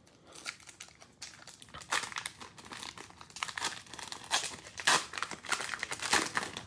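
Cellophane wrapper of a Prizm cello pack of trading cards being opened and handled by gloved hands: irregular crinkling and crackling, with several sharper crackles as the wrapper is pulled apart and the cards slid out.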